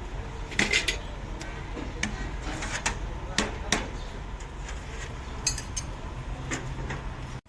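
Metal tools and parts clinking and tapping against each other, a dozen or so irregular sharp knocks, over a steady low background hum.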